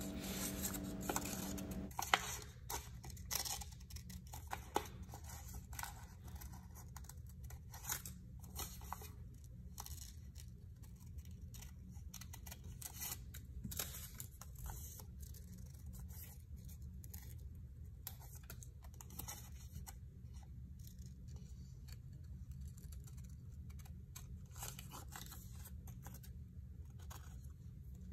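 Scissors snipping through paper in a long run of short, irregular cuts, faint, with paper rustling as the sheet is turned between cuts.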